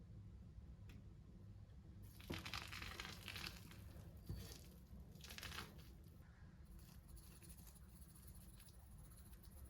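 Faint crinkling and rustling of handled material in three short bursts, the first and longest about two seconds in, over a low steady hum.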